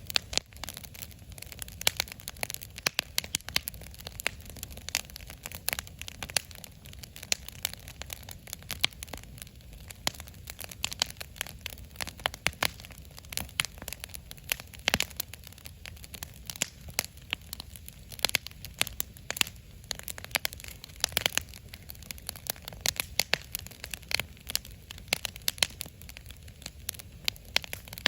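Wood fire in a fire pit crackling, with frequent irregular sharp pops over a low steady rumble.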